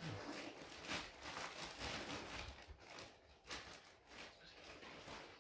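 Gift wrapping paper rustling and crinkling in an irregular string of short crackles as a beagle noses and pulls at a wrapped present.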